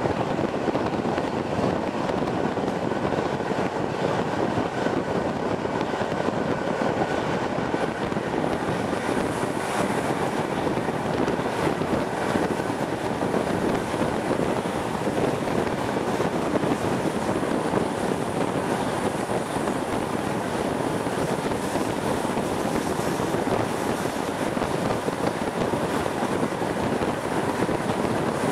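Steady rolling noise of a moving passenger train, with the rush of wind at an open coach window.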